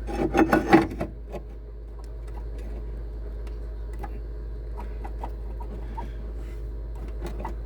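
Pry bar clanking on the steel lower control arm bracket of a Nissan Pathfinder, a few sharp knocks in the first second, then faint scattered metal clicks as the bracket is levered. The bracket has rusted through and separated from the frame, so it moves under the bar.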